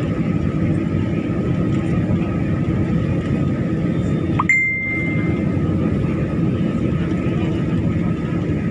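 Steady noise of an airliner cabin on descent, the engines and rushing air running evenly. About halfway through a short two-note electronic chime sounds, the second, higher note held for about a second.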